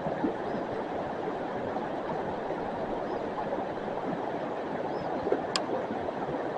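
River water rushing steadily, with one brief sharp tick about five and a half seconds in.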